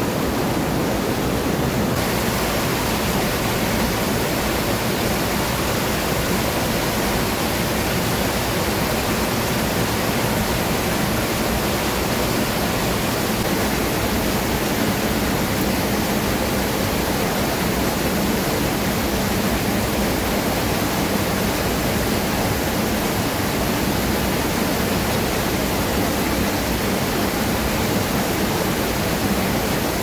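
Waterfall: falling water rushing with a steady, unbroken hiss.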